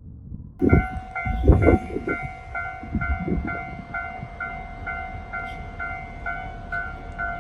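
Japanese level-crossing warning bell starts about half a second in and rings steadily at about two strikes a second. Deep rumbling thuds underlie it in the first few seconds.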